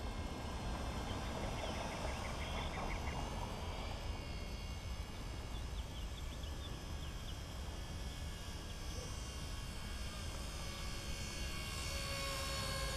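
WLtoys V931 electric radio-controlled helicopter running steadily in flight: a thin motor-and-rotor whine over a low rumble.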